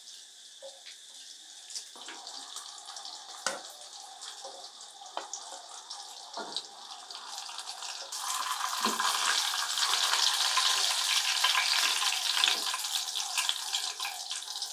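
Oil sizzling and crackling around seer fish (vanjaram) slices shallow-frying in a nonstick pan, with a few taps and scrapes of a wooden spatula as pieces are lifted out. The sizzle grows louder about eight seconds in.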